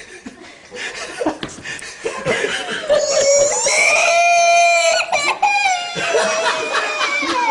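A young boy bursting into tears: a long, high wail from about three to five seconds in, then more crying, with people laughing around him.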